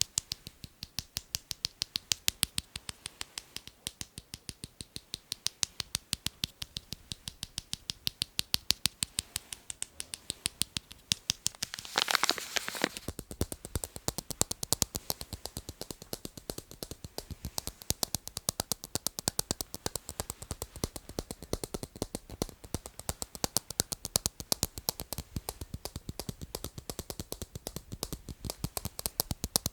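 Tapping on hard objects: a steady run of sharp taps, several a second, with a short scratchy rustle about twelve seconds in.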